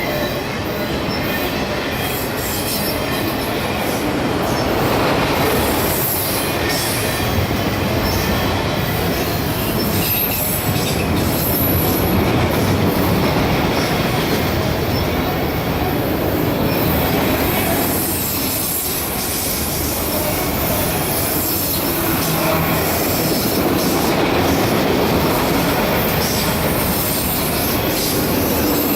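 CSX freight train's cars rolling steadily past: steel wheels on the rails, with wheel squeal and occasional clacks over the rail joints.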